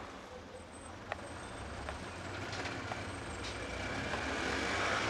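Street traffic: cars driving past with a steady low engine rumble. The noise of the traffic swells gradually toward the end, and there is a faint click about a second in.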